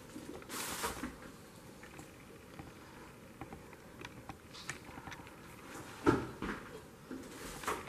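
Scattered scuffs, rustles and knocks of people moving about on a littered floor, with one louder thump about six seconds in.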